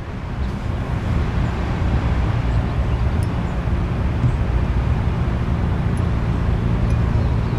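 Steady low rumbling background noise that swells over the first second and then holds even.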